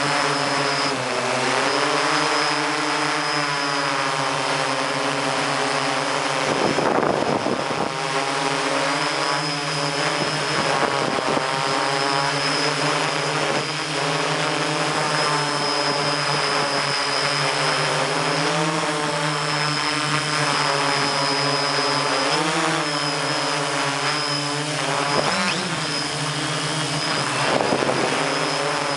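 MikroKopter hexacopter's electric motors and propellers whining as it flies, heard from aboard the craft, the pitch rising and falling together as the motor speeds change. Wind rushes over the microphone about seven seconds in and again near the end.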